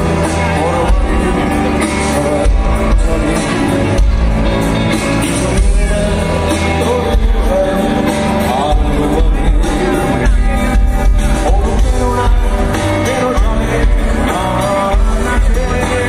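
Live rock band playing loud through a concert sound system, with a singer's voice over heavy bass and drums, heard from among the audience.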